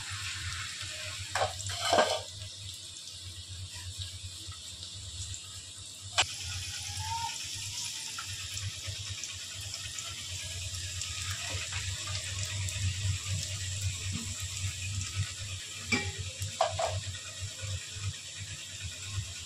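Sliced onions sizzling steadily in hot oil in a metal pot. A wooden spoon scrapes against the pot near the start, with a sharp knock about six seconds in and a few more light knocks later.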